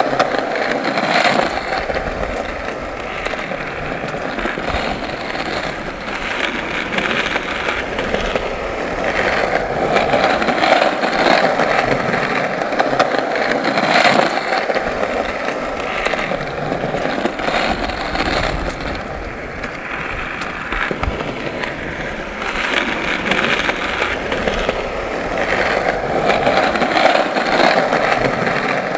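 Skateboard wheels rolling over pavement in a continuous gritty rumble, broken by frequent sharp clacks and knocks of the board.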